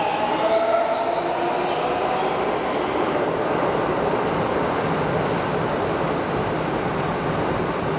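Keikyu 1000 series train with the Siemens GTO "Doremifa" traction inverter accelerating away from the platform. A pitched inverter whine is heard for about the first second. Then comes the steady running noise of the train as it leaves into the tunnel.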